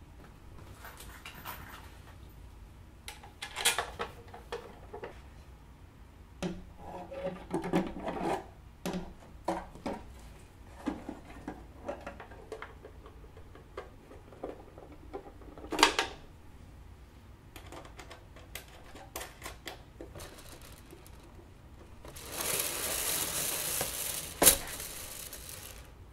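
Wooden frame parts and hardware being handled and fitted: scattered knocks, clicks and clatter of wood, with a sharp knock about halfway through and a rushing scrape lasting about two seconds near the end.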